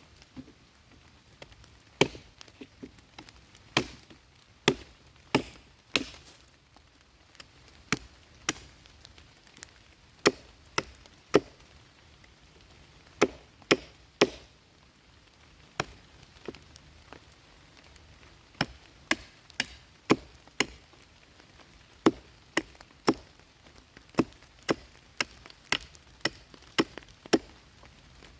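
Repeated chopping: a blade striking wood in sharp single strokes, roughly one or two a second with short pauses between runs.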